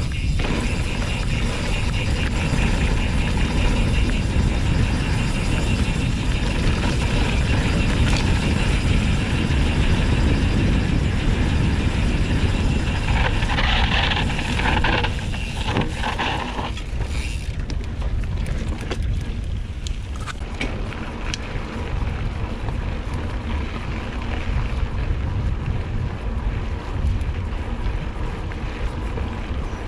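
Wind buffeting the microphone of a rider-mounted camera on a mountain bike rolling along a dirt track, with tyre noise and the bike rattling over the bumps. A brighter stretch of hiss comes about halfway through, and after that the rush runs a little quieter with scattered clicks.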